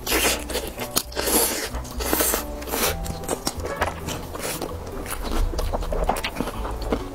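Close-miked biting and chewing of sauce-glazed fried chicken, with a run of sharp bites in the first three seconds.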